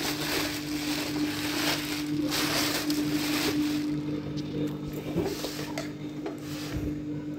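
Clear plastic wrapping crinkling and rustling as an electric roti maker is handled, over a steady low hum.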